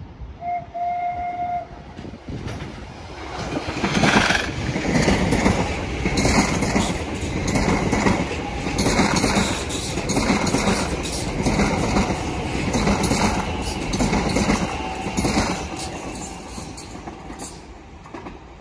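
Elizabeth line Class 345 electric train giving a short horn note about half a second in, then running past: its wheels clatter over the rail joints in a quick, uneven rhythm, loudest a few seconds in and fading near the end.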